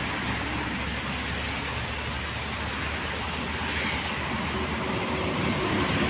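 Highway traffic: a steady rush of tyres and engines from coaches and cars on the toll road, growing a little louder near the end as buses draw close.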